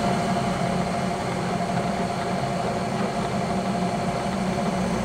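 Bridgeport milling machine running with a steady hum as a spotting drill feeds into a metal bar, spot-drilling a starter hole.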